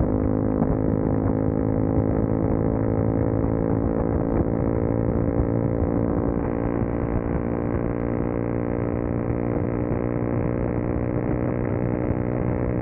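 CFMoto 300SS's single-cylinder engine running steadily at highway speed as the bike picks up gently from about 52 to 60 mph, with wind rush on the microphone.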